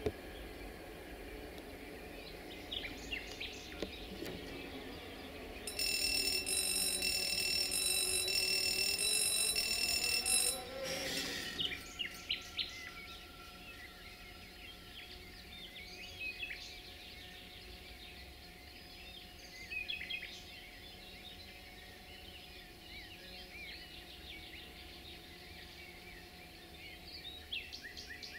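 Air horn of a CFR 060-DA (LDE2100) diesel-electric locomotive sounding one steady, high-pitched blast of about five seconds, starting about six seconds in. Birds chirp throughout.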